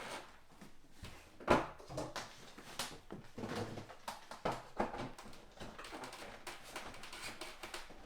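Rigid foam insulation board being pushed and worked into a window frame: irregular knocks and scrapes, the sharpest about a second and a half in.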